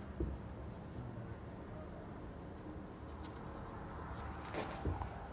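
A cricket chirping steadily, a continuous high pulsing trill. Faint marker strokes on a whiteboard come about four and a half seconds in.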